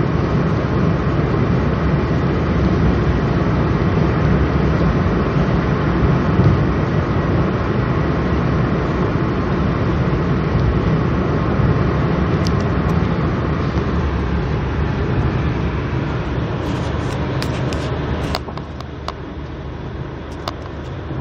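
Steady road and wind noise inside a car cabin at highway speed, about 80 mph. About 18 seconds in it becomes somewhat quieter, and a few small clicks follow.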